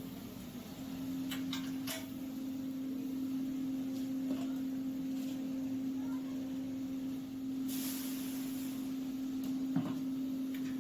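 Steady machine hum from a steam-heated mawa (khoa) kettle plant, holding one pitch, with a few light clicks and a short burst of hiss about eight seconds in.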